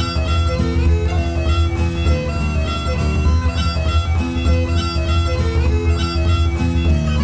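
Instrumental background music: a quick melody over a steady low drone.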